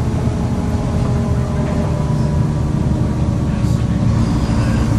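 Volvo B7LA bus diesel engine running under way: a deep, steady rumble with a thin whiny turbo whistle over it that drifts slightly in pitch.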